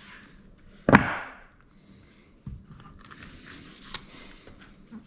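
Boning knife cutting and scraping raw hog shoulder meat off the bone on a wooden cutting board, with faint slicing and rubbing. A sharp knock on the board about a second in, and a smaller one about halfway through.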